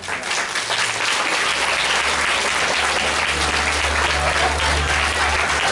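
Audience applauding in a hall, swelling over the first second and then holding steady.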